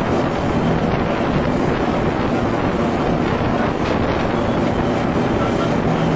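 Motorboat running at speed: a steady rush of wind on the microphone and spray from the wake, over a low, even engine drone.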